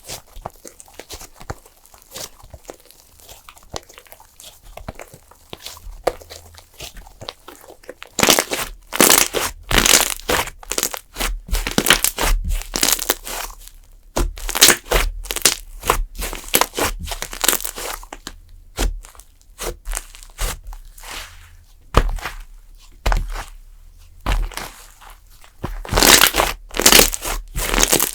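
Clay slime being squeezed and pulled by hand, making crackly, crunchy bursts. It is faint for the first several seconds and much louder from about eight seconds in.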